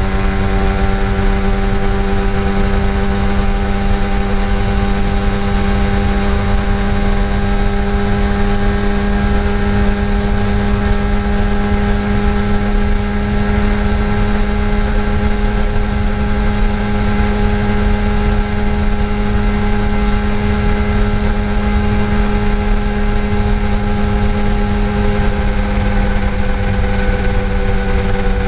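Yamaha TDR250's two-stroke parallel-twin engine running at a steady, held speed, its note barely changing throughout, over a low rumble of wind on the microphone.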